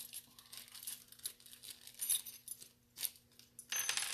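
Small handling noises as the chuck of a micromotor carving handpiece is twisted loose: scattered light clicks and metallic rattles, then a short crinkly rustle near the end.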